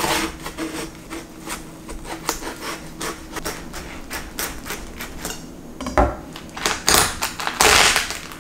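Knife cutting into a whole watermelon, the rind crackling in many quick, crisp snaps. Louder cracking and wet tearing in the last couple of seconds as the melon splits into halves.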